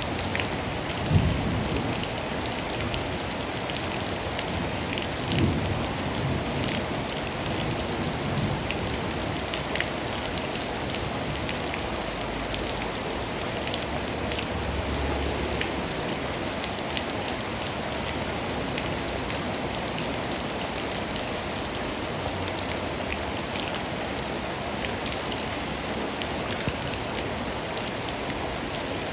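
Steady rain falling, an even hiss of drops with scattered sharper patters. A few short low rumbles rise under it in the first several seconds, the loudest about a second in.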